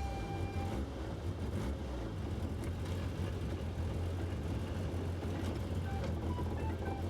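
Toyota AE86 Levin's engine running steadily with a low, even rumble.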